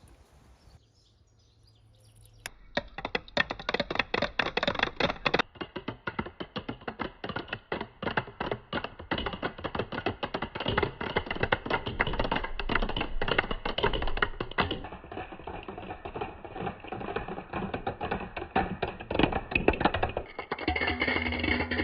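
Many marbles clattering and rolling down a marble run, a rapid, dense stream of clicks starting about two seconds in.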